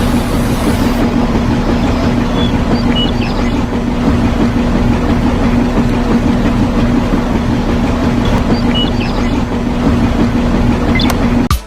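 A motor running steadily with a constant hum and dense mechanical noise, cutting off suddenly near the end.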